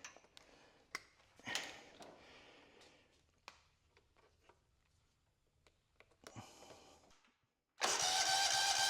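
Faint clicks and handling noise from fitting an inline spark tester, then near the end the Kohler CV15 engine is cranked over by its electric starter, a sudden steady whine, to check the newly fitted ignition coil for spark.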